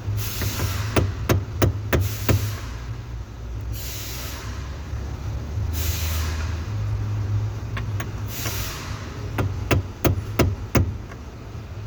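A new steering column bearing being tapped into its seat in a 2020 Hyundai Sonata's column: about five quick sharp taps at the start and another five near the end. A steady low hum runs underneath, with a few short hissing rushes between the taps.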